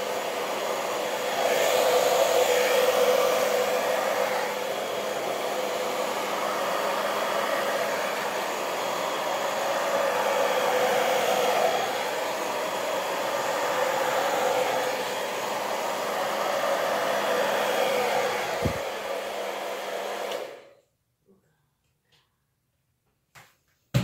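Hand-held hair dryer running: a steady rush of air over a motor hum, its loudness swelling and easing a little as it is moved about. It switches off near the end.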